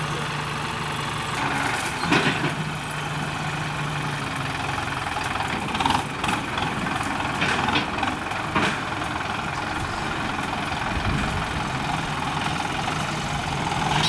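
Kubota M9540 tractor's diesel engine running steadily as it pulls a disc plough through the soil, with four short sharp clunks spread through the middle of the stretch.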